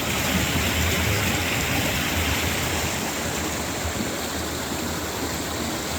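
Stream water rushing steadily, a constant even hiss that is a little brighter in the first half.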